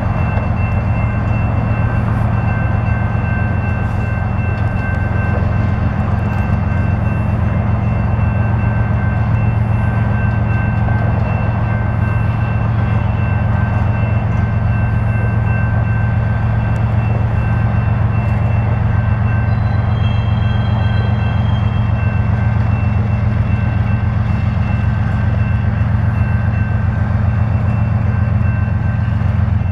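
Diesel engine of a CP Rail GE locomotive leading a unit tank car train, a loud steady low drone that holds level throughout, with a few thin steady high tones above it.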